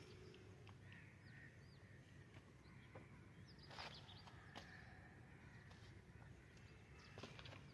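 Near silence of open countryside with faint, scattered bird chirps and calls, a few short ones about a second in and a brief flurry about four seconds in.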